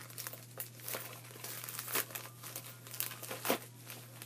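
A mailing package being torn and crumpled open by hand: irregular crinkling and crackling rustles with a few sharper rips.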